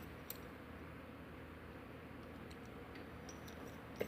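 A few faint, short ticks from lock picking tools working in a lock, over quiet room tone.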